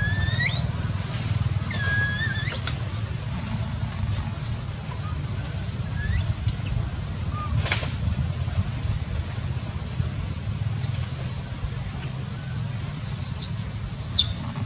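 Baby macaque crying: a few short high-pitched calls that rise sharply in pitch, twice in the first three seconds and again around six to eight seconds in, the distress calls of an infant that has lost its mother. Thin very high chirps come and go over a steady low rumble.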